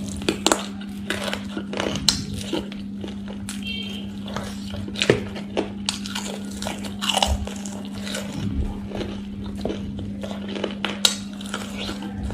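Close-up eating sounds: crispy fried chicken drumstick being bitten and chewed, with irregular crunches, crackles and mouth clicks. A steady low hum runs underneath.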